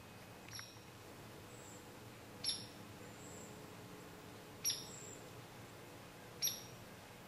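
A bird giving short, sharp, downward-slurred chirps, four of them about two seconds apart, over a faint steady background.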